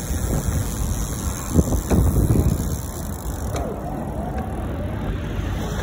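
Wind rumbling on the microphone and tyre noise from bicycles rolling on tarmac while riding, louder in a few gusts about a couple of seconds in.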